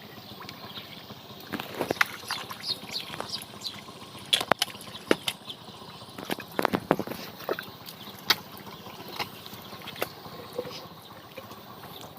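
Shallow muddy water splashing and sloshing in irregular, sharp splashes, the sound of a ditch being bailed out and fished by hand.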